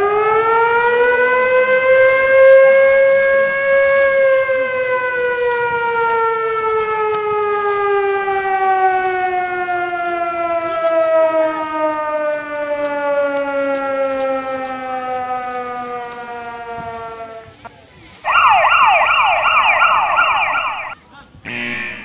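Outdoor warning siren winding up to a loud wail over about four seconds, then slowly winding down in pitch for more than ten seconds until it dies away. Near the end, a different, rapidly wavering tone sounds for about three seconds.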